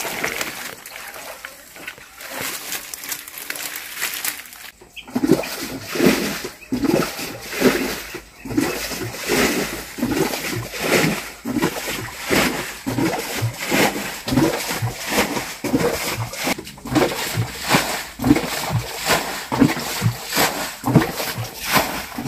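Water being bailed out of a muddy stream pool by hand, splashing in a steady rhythm of about two scoops a second from about five seconds in.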